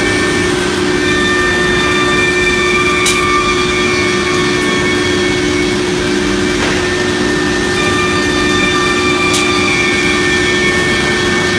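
A CNC router's 6 kW HSD spindle running at speed and cutting particle board: a steady whine of several tones over the hiss of the cut, with two sharp ticks, about three and about nine seconds in.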